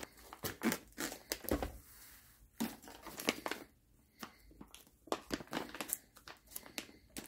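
Plastic packaging crinkling and rustling as it is handled, with scattered light clicks and taps, while powder coating powder is being put into the spray gun's hopper.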